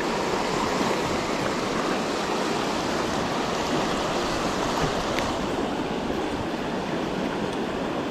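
Fast-moving creek water rushing steadily.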